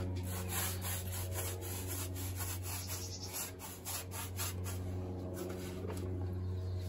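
A small brush scrubbing lime paint onto a rough plaster wall in many quick, irregular strokes, a dry scratchy rubbing over a steady low hum.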